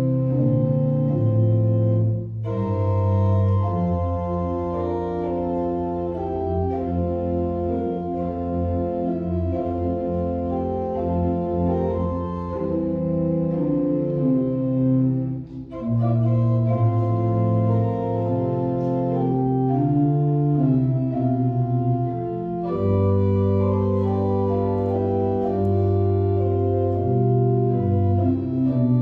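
Church organ playing a hymn in held chords, with short breaks between phrases about two seconds in and again about halfway through.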